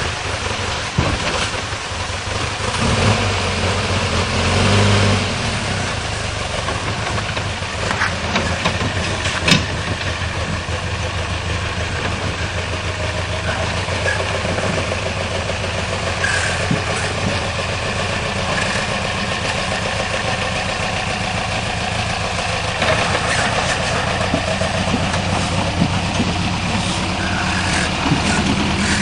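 Military off-road vehicle's engine running steadily at low revs, with a single sharp knock about nine and a half seconds in.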